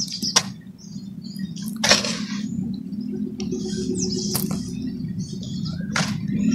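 Dry cement lumps being crumbled by hand and falling onto a heap of cement powder in a basin, with dry crunching and crackling strokes every second or two. Short high chirps sound in the background, and a steady low hum grows louder through the second half.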